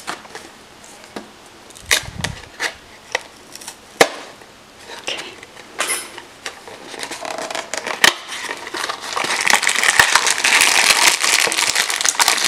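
A small cardboard blind box being handled and opened, with sharp clicks and snaps of the paperboard. From about nine seconds in comes steady crinkling of the clear plastic bags of miniature pieces as they are pulled out.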